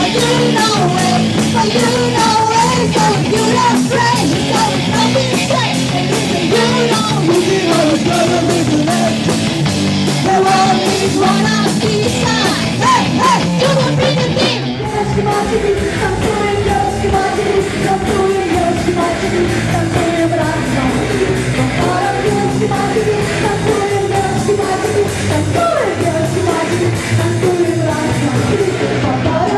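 Loud rock song in a heavy, punk-like style: a full band with a steady drum beat and a singing voice over it. The band briefly drops back about halfway through.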